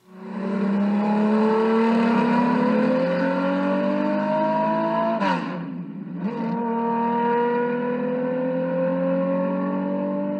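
Racing car engine accelerating hard: its pitch climbs steadily for about five seconds, drops sharply at an upshift, then climbs again.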